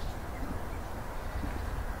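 Steady low outdoor rumble with a faint hiss above it, with no distinct events.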